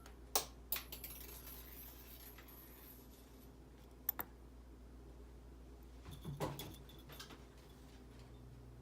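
Faint, scattered clicks and taps of small metal watch parts and tools being handled during disassembly, with a sharp double click about halfway through and a short cluster of taps later on.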